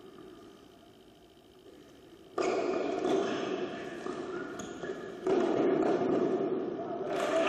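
Tennis rally: sharp racket strikes on the ball, the first about two and a half seconds in, each followed by a loud steady noise of the indoor hall.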